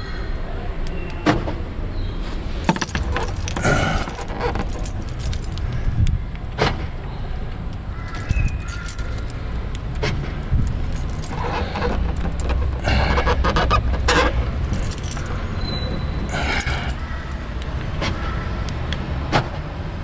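Clicks and jangling rattles from a car door and its fittings being worked by hand, in several bursts, the longest a little past the middle, over a steady low rumble.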